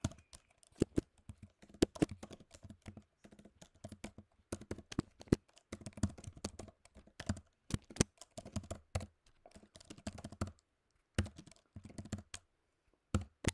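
Typing on a computer keyboard: a quick run of keystrokes, with a couple of short pauses near the end.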